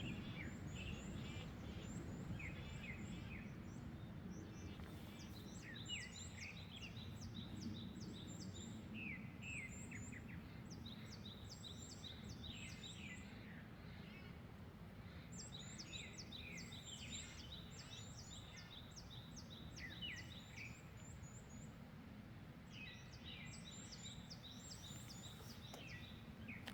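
Small songbirds chirping and singing: runs of quick, very high notes and short downward-sweeping calls that come in clusters with brief pauses. Under them is a steady low rumble of wind.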